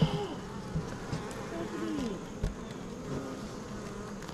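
Honeybees buzzing around an open hive, with single bees flying close past the microphone so their pitch rises and falls. There are a couple of short knocks, one right at the start and one about two and a half seconds in.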